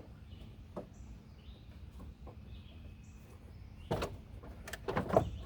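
Sharp clicks and knocks of parts and tools being handled while supercharger piping is taken apart, bunched together about four to five seconds in, over a low steady background rumble.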